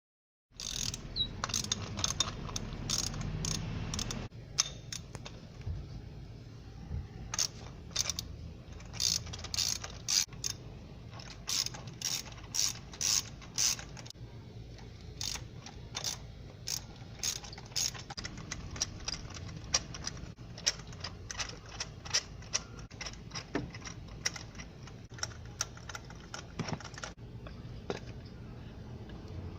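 Hand ratchet wrench clicking in short irregular runs as it is worked back and forth.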